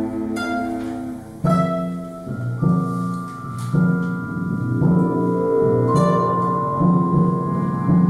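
Live contemporary ensemble music for classical guitars, cellos, piano, percussion and electronic sounds: plucked and struck notes over a low note pulsing about once a second, with long held high tones entering about two seconds in.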